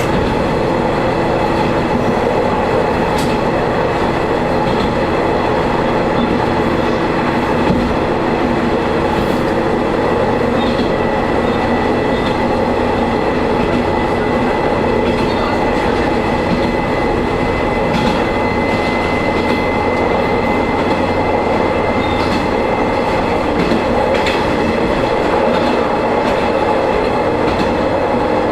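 A diesel railcar running along the line, with a steady engine and running drone and occasional clicks of the wheels over rail joints. A thin high whine runs through the middle of the stretch.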